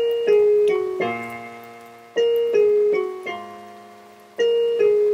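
Slow piano-style keyboard music: ringing notes and chords struck about once a second and left to fade, with a stronger accent about every two seconds and a low bass note under some chords.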